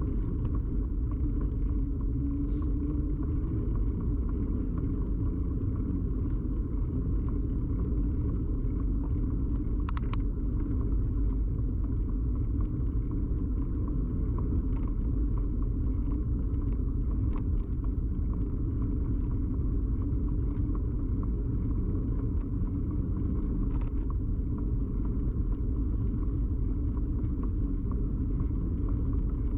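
Steady low rumble of a bicycle ride, with the road's vibration carried through the bike frame into the camera fixed to it. There are a couple of faint clicks.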